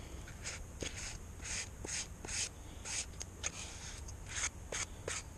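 Plastic squeegee rubbing in short, quick strokes over plastic sheeting laid on wet epoxy, about two or three strokes a second, with a few brief squeaks.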